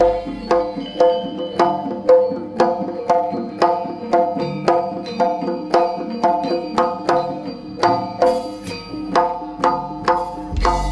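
Javanese jaranan gamelan playing: kendang drum strokes over ringing bronze metallophone notes, in a steady beat of about two strokes a second.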